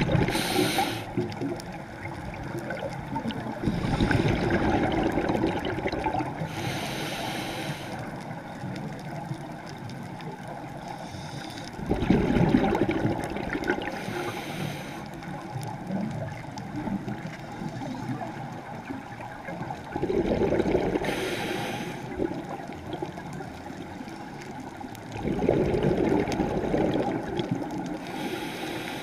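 Scuba diver breathing through a regulator underwater, heard through the camera housing. A short hiss comes on each inhale about every seven seconds, and a louder gurgling rush of exhaled bubbles comes between them, four times.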